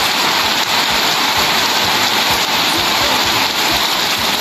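Heavy rain falling steadily on a corrugated metal roof and pouring off its edge onto muddy ground.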